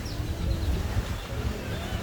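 Beach ambience: a steady low rumble of wind and surf, with a few faint, short high chirps from birds near the start.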